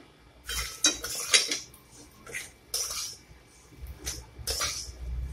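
Metal spatula scraping and stirring a dry, crumbly moong dal kachori filling around a metal kadai, in a series of irregular scrapes. The scrapes are loudest in the first second and a half.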